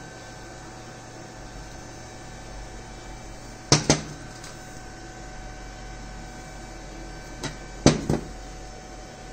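Sharp clinks of machined steel lathe-chuck parts being handled and set down on a concrete floor: two close together around the middle and three more near the end, over a steady electrical hum.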